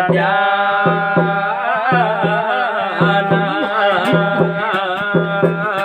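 Garhwali jagar music: a long-held, wavering sung melody over a steady hand-drum beat.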